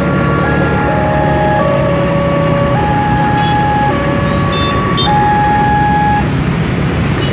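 Railway level-crossing warning alarm sounding an electronic two-tone chime, alternating between a lower and a higher tone about once a second while the boom barrier lifts, then falling silent about six seconds in; road traffic noise underneath.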